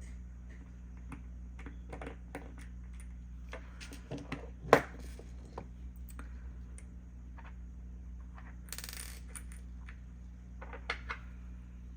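Small metal parts of a fidget slider clicking and clinking together as they are handled and fitted. There is one sharp clink a little before five seconds in, a short scraping rattle around nine seconds, and a couple more clicks near the end.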